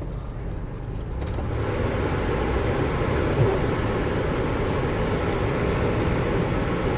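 Steady engine and road noise inside a car driving on a snowy highway, with a broad rushing hiss that swells up about a second and a half in and then holds steady.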